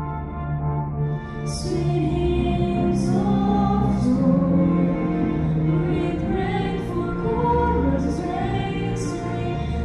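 A girls' choir singing a Christmas carol in sustained, held lines.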